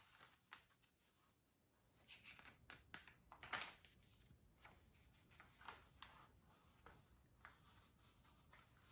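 Faint rustling and light clicks of a large picture book's paper pages being handled and turned, in scattered short bursts with near silence between.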